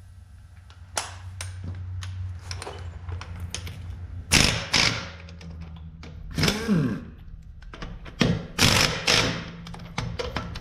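Harbor Freight air impact wrench on a deep-well socket, running in several short bursts with a hiss of air to loosen the truck's lug nuts, a few spinning up and down in pitch, with clunks and taps of the socket and nuts between them. A steady low hum runs underneath for the first half.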